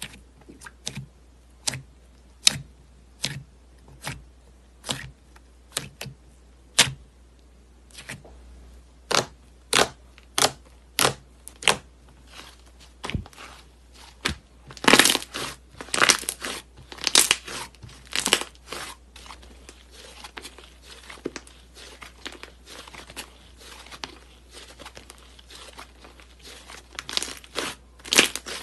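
Green slime worked by fingers, clicking and crackling as it is poked and squeezed. At first it gives single sharp crackles about one a second, then, around the middle, a denser, louder run of crackles and crunches as it is pressed and kneaded, before quieter crackling.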